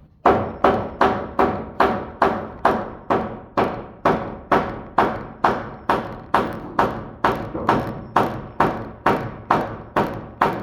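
Steady rhythm of hammer blows on wood, about two and a half strikes a second, driving a tight-fitting 2x12 floor joist down into place between beam and ledger.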